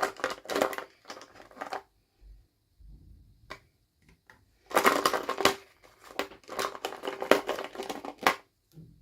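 Packaging crinkling and being crushed by hand, in crackly bursts: one burst in the first two seconds, then longer ones from about halfway to near the end, with quiet gaps between.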